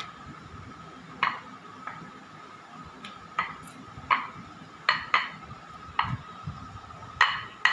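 Samosa dough being rolled out with a wooden rolling pin on a marble board: a series of irregular sharp clicks and knocks as the pin and the bangles on the wrist strike the stone. A faint steady hum runs underneath.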